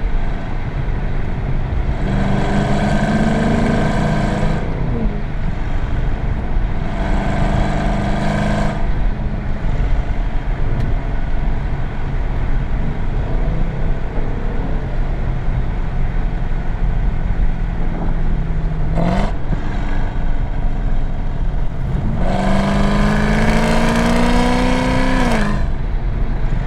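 Cammed Chevy SS's 6.2-litre LS3 V8, with a Livernois 2C camshaft and American Racing headers, rumbling under way. Three times the engine note climbs for a few seconds and then drops sharply, and there is a quick rev blip about nineteen seconds in.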